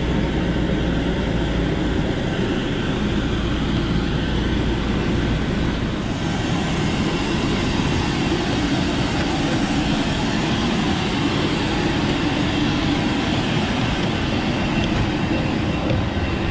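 Steady, loud apron noise of jet aircraft and ground equipment running, with a heavy low rumble for about the first six seconds.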